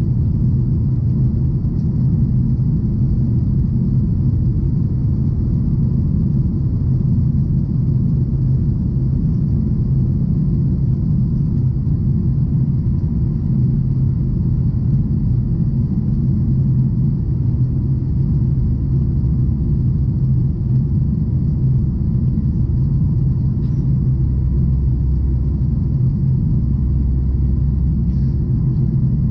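Steady low rumble of a Boeing 737's jet engines as heard inside the passenger cabin. A deeper hum swells in during the second half.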